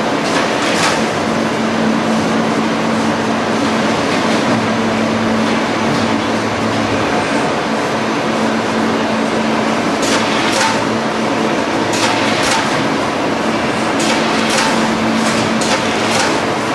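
Multi-strand belt conveyors of a mail and parcel sorting line running, giving a steady mechanical rush with a constant hum. In the second half there are sharp clacks every half second to second or so.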